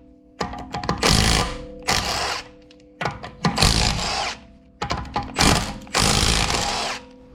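Impact wrench with a 17 mm socket spinning the wheel bolts loose in about five short bursts of hammering.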